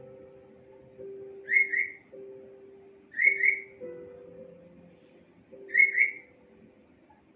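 A parrot whistling short, shrill two-note whistles, four of them a second or two apart, over soft sustained background music.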